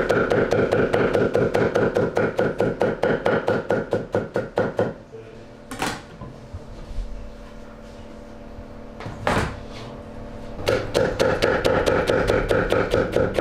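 Large chef's knife chopping rapidly through carrots onto a wooden cutting board, cutting them into thin julienne strips at about seven strokes a second. The chopping stops about five seconds in, with two single knocks during the pause, and starts again near the end.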